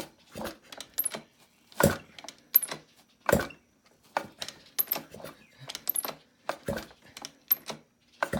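Irregular metallic clicks and knocks, a few of them louder, from hand work on a Yamaha YZ85 two-stroke engine's freshly reassembled top end.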